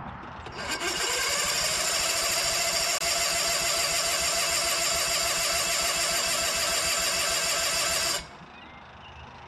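Starter motor of a Case 1816C skid steer's gas engine cranking for about seven and a half seconds. It is a steady whine that picks up speed at first and cuts off suddenly. The engine does not catch, and the owner wonders whether it is out of fuel.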